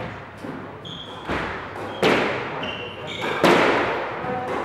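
Squash rally: the ball is struck by rackets and hits the court walls, making three sharp, echoing cracks about a second apart. Short high squeaks of court shoes on the wooden floor come between the hits.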